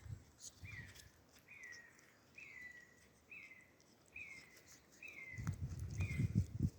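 A bird of prey calling: a steady series of eight short calls, each sliding down in pitch, about one a second. Low thumps and rustling come in near the end.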